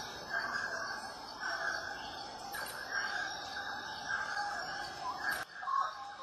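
Dense, steady chorus of chirping wildlife calls, breaking off abruptly for a moment about five and a half seconds in.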